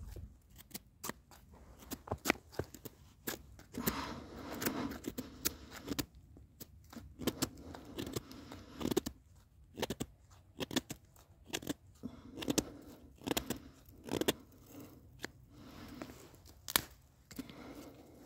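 Dry kindling sticks being split apart and snapped by gloved hands: irregular sharp cracks and splintering, with tearing and scraping of wood fibres in between.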